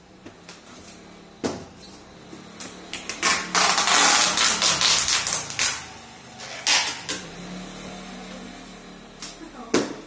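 Plastic packing tape being pulled off its roll with a loud rasp, one long pull of about two seconds near the middle, between shorter rips and taps as tape is torn and pressed down onto a cardboard box.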